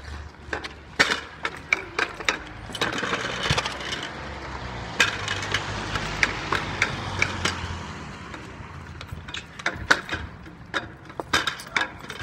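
Plastic pogo sticks bouncing on hard paving: a run of sharp, irregular knocks and clacks as the sticks land, some coming in quick clusters.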